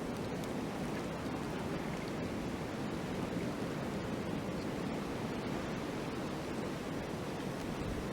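Steady wind blowing during a snowfall: an even rushing noise, with faint light ticks over it.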